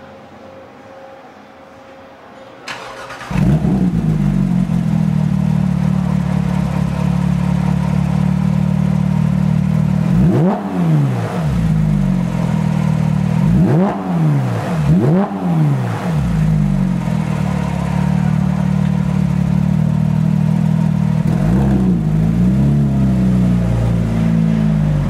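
Porsche 911 GT3's naturally aspirated flat-six, breathing through a Fabspeed aftermarket exhaust, starts up about three seconds in and settles to a steady idle. Between about ten and sixteen seconds in it is revved sharply several times, each rev rising and falling quickly, and it is blipped lightly again about twenty-two seconds in.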